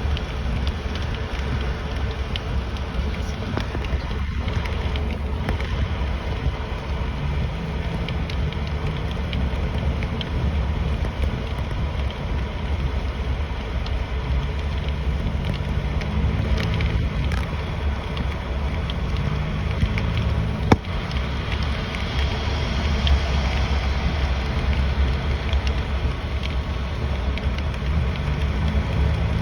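Steady road and engine rumble heard inside a moving car, with a single sharp click about two-thirds of the way through.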